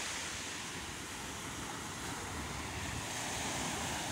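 Small waves breaking and washing up a sandy beach: a steady hiss of surf, with some wind rumble on the microphone.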